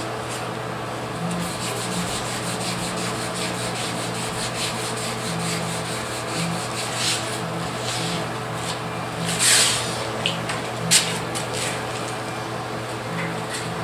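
Sandpaper rubbing back and forth by hand over the fresh Rust-Oleum paint on a Dodge Dakota pickup's cab, colour sanding to level orange peel. There is a louder swish about nine and a half seconds in and a sharp tick about a second later.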